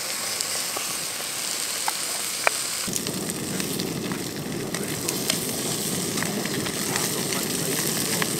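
Slices of spam frying in an aluminium pan on a gas camping stove. The hiss of the burner is joined about three seconds in by a fuller, steady sizzle with small scattered pops and clicks.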